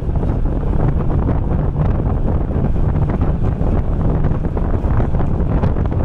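Steady low rumble of a moving vehicle travelling along a concrete road, with wind buffeting the microphone.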